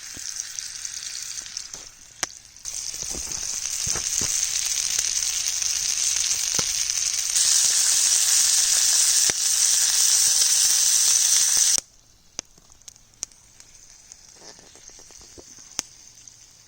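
Vegetables sizzling as they fry in a pan over a campfire. The sizzle grows louder, then cuts off suddenly about twelve seconds in, leaving only faint clicks and crackles.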